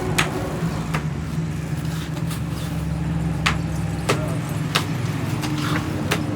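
A motor-driven machine runs with a steady low hum. Sharp knocks or clacks come irregularly, about six times, like hard pieces striking metal.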